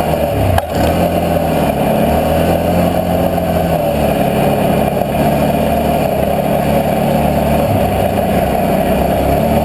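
Can-Am Outlander 650 XMR ATV's V-twin engine running steadily under way, its engine speed shifting a little, with a single sharp knock about half a second in.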